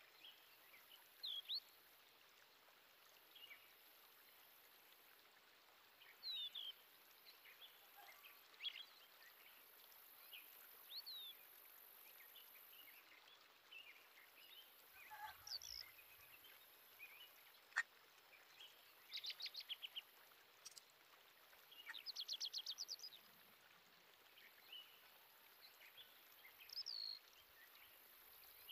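Faint outdoor birdsong: scattered short chirps and whistles, with two rapid trills in the second half and a single sharp click about two-thirds of the way through.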